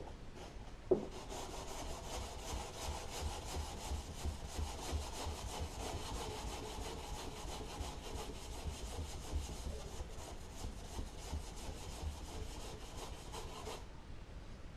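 400-grit sandpaper rubbed by hand back and forth over cured primer on a car body panel, in quick, even strokes. A single knock comes about a second in, and the sanding stops about a second before the end.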